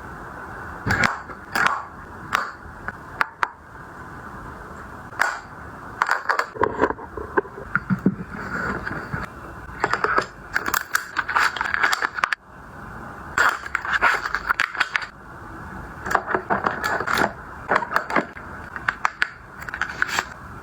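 Small cosmetic packages being handled: irregular clicks, taps and scrapes, some in quick clusters, over a steady background hiss.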